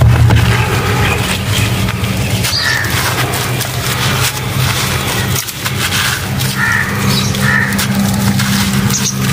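A large dry chunk of sand-and-cement crumbling and crunching between hands, with gritty crumbs and small lumps pattering onto a concrete floor. A steady low hum runs underneath.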